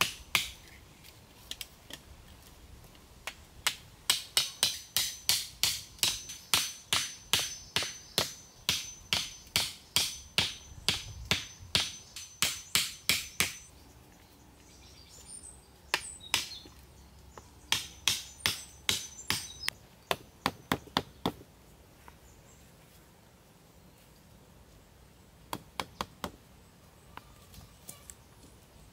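Hatchet pounding bamboo stakes into the ground: runs of sharp strikes about two a second, with a thin high metallic ring over the first run. The runs are broken by pauses, and a few lighter knocks come near the end.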